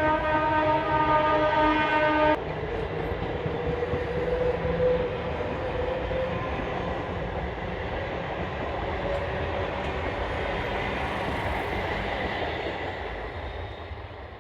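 Local train's horn sounding, cutting off sharply about two seconds in, then the train running past with a steady rolling rumble that slowly fades.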